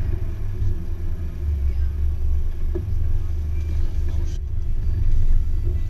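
Off-road 4x4's engine and drivetrain rumbling steadily at low speed while it drives over a rough dirt track.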